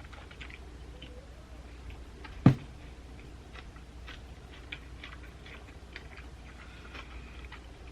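Close-up chewing of a Subway sub sandwich: scattered small wet clicks and crackles over a low steady hum, with one sharp thump about two and a half seconds in.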